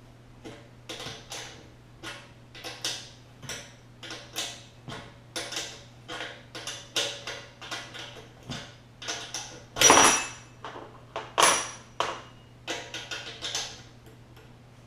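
Small metal wrench clicking on a caster wheel's locking nut and against the metal housing of a pressure-washer surface cleaner as the nut is tightened. A steady run of light clicks comes about one or two a second, with two louder, ringing metal clinks a little past the middle.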